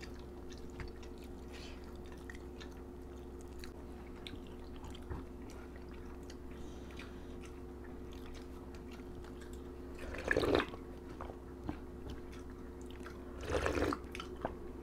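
Quiet close-up eating sounds: soft chewing and small mouth and finger clicks over a steady low hum. There are two louder slurps, about ten seconds in and again near the end, as broth is sipped from a spoon.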